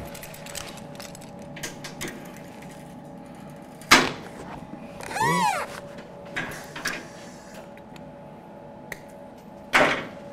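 Clanks and clicks of a locking C-clamp being fitted and steel tools handled on a steel welding table, with two sharp metal knocks, about four seconds in and again near the end. A short squeak that rises and falls comes about five seconds in.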